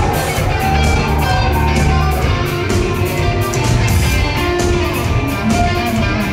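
A rock band playing live: electric guitars over bass and a steady drumbeat, loud and dense as heard from the audience.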